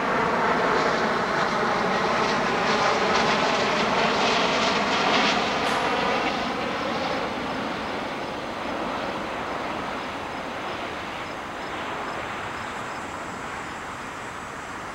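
A continuous engine drone with a slowly wavering pitch, fading steadily over the second half.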